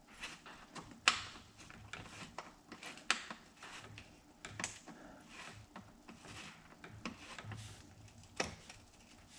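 Irregular light metallic clicks and taps of hand work on a mountain bike's suspension pivot as the pivot shaft and its hardware are worked out of the frame, with a sharper knock about a second in and another near the end.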